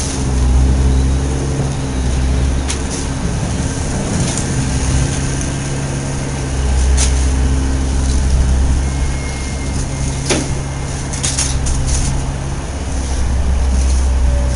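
A vehicle engine runs steadily at one pitch, with a deep rumble that swells and fades several times. A few sharp clicks and knocks sound over it.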